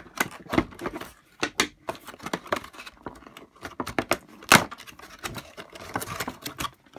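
Stiff plastic doll-box packaging being pulled and twisted open by hand: irregular sharp crackles and clicks, with one loudest snap about halfway through.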